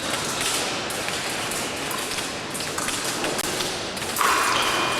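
Light taps and thuds from an épée bout: fencers' feet on the piste and blades touching. A louder noisy burst begins about four seconds in.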